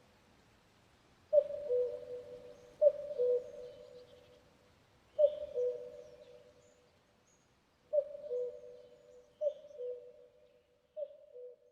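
Common cuckoo calling its two-note "cu-ckoo", the second note lower than the first, six times at uneven intervals of one and a half to nearly three seconds, with faint chirps of other small birds behind it.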